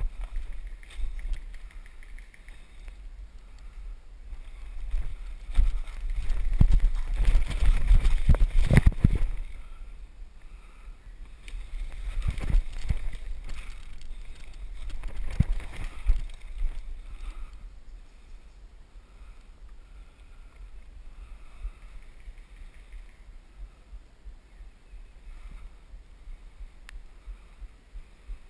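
Footsteps and brushing through leafy forest undergrowth, with clothing and gear rubbing on the body-worn camera's microphone, loud in two stretches. It quietens toward the end, with soft, evenly spaced thumps.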